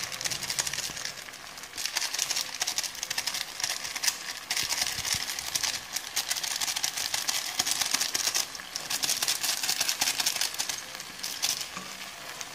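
Instant noodles and chopped vegetables frying in a pan, a crackling sizzle that swells and eases in stretches of a few seconds as the spices go in and the mix is stirred with a steel ladle.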